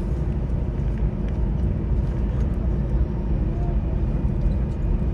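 Steady low rumble of a moving vehicle heard from inside, with a faint steady hum.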